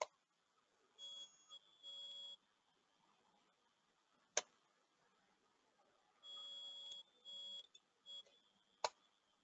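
Three sharp computer key clicks about four seconds apart, Enter being pressed to step through the screens. Between them come faint short electronic beeps, several under half a second each, in two clusters.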